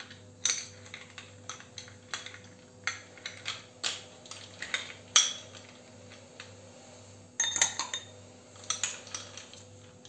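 Ice cubes dropped from a small bowl into a tall drinking glass, clinking against the glass and each other in a string of sharp knocks, densest about three quarters of the way in.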